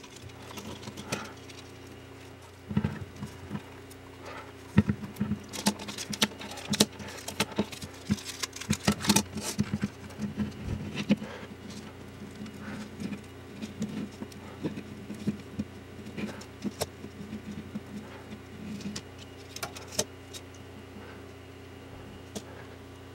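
Hands handling a flexible LED light strip, its white cable and a black ABS lamp core: irregular light taps, clicks and rustles, busiest in the middle and thinning toward the end, over a faint steady low hum.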